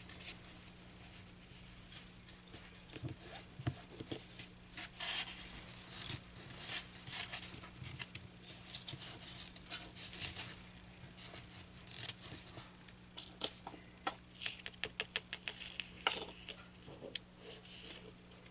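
Fabric and a styrofoam board being handled: irregular rustling, scratching and light tapping as the cloth is smoothed, folded and pinned over the foam, over a steady low hum.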